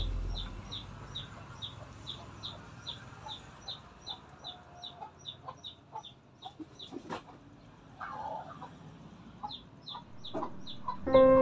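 Backyard chickens: a rapid run of short high peeps, about two or three a second, pausing around the middle and resuming, with a few low clucks. A single sharp tap about seven seconds in.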